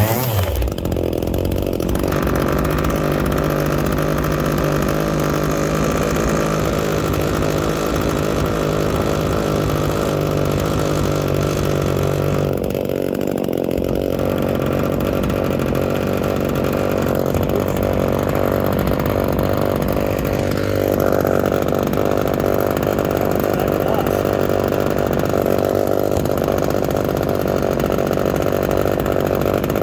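Small Echo two-stroke chainsaw engine running steadily just after starting on half choke, its tone shifting slightly a couple of times.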